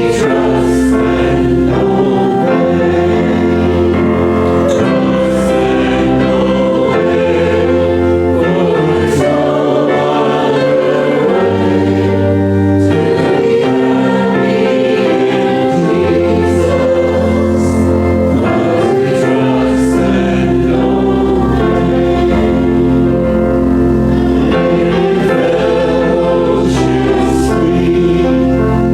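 Congregation and musicians singing a hymn, with voices over a steady accompaniment and a bass line that moves from chord to chord.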